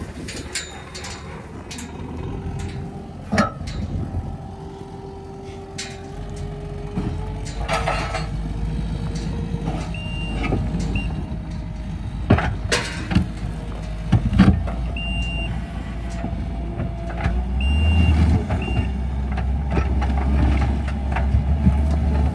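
Diesel engine of a compact track loader running and changing revs, then working harder and louder for the last few seconds as it pulls a steel fence post set in concrete out of the ground. A backup alarm beeps briefly a few times, and a few sharp metal knocks come from the machine.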